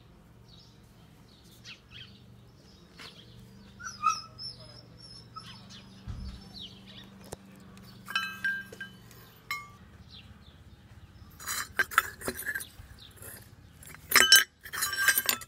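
Rusty old garden bell, a cluster of small metal bells hanging from a domed cap, clinking and ringing briefly as it is lifted and handled, with louder, busier clanking near the end. Faint bird chirps come through in the first half.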